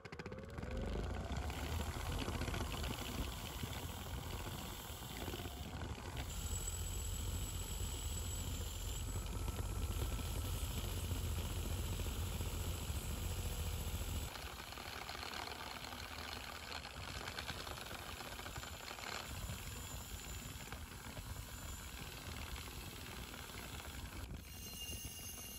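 Bench grinder motor spinning up, then running steadily while metal hand-drill parts are pressed against its spinning wheel to clean and polish them. The low hum drops about halfway through, and the machine keeps running after that.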